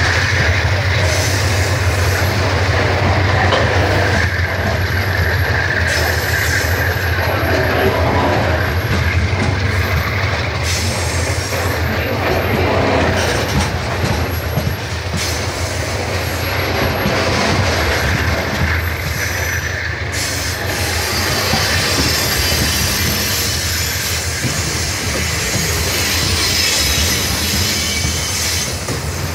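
Freight train of covered hopper wagons passing at close range: steel wheels running steadily over the rails with a loud, unbroken rumble as car after car goes by.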